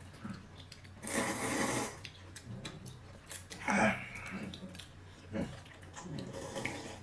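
Mealtime sounds: a short burst of noise about a second in, two brief hums of a voice near the middle, and light clicks of tableware.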